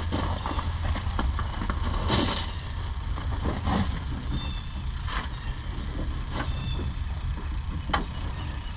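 Scattered clicks and brief scrapes of hands working plastic headlight retaining clips, with a steady low rumble underneath.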